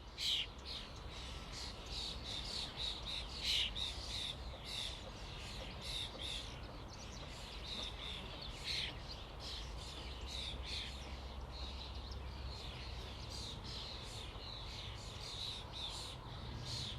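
Flock of common starlings calling together: a dense chatter of many short overlapping calls and whistles, with a steady low rumble underneath.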